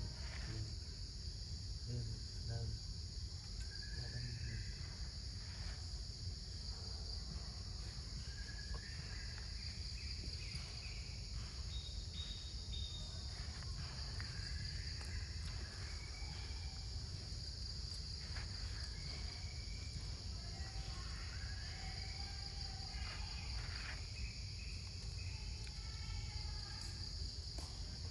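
A steady, high-pitched chorus of insects, with short chirps scattered over it and a low rumble underneath.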